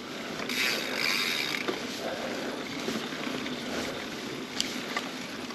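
Mountain bike riding along a trail: a steady rushing noise of tyres over dirt and rock, with a few sharp clicks and knocks from the bike.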